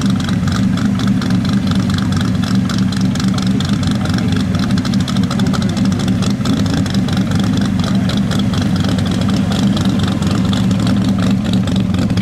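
First-generation Pontiac Firebird's engine idling steadily.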